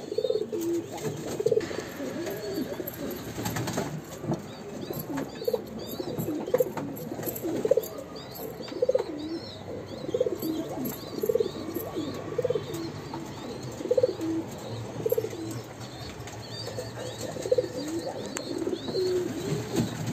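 Polish Srebrniak pigeons cooing, one coo following another about every second. Small birds chirp faintly in the background.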